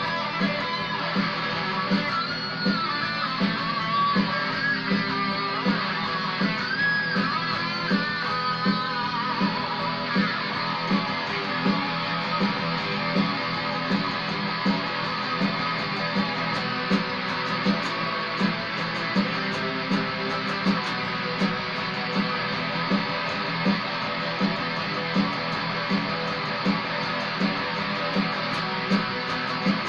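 Squier Stagmaster electric guitar played in the key of E, with bent lead notes in the first ten seconds, over a steady low beat.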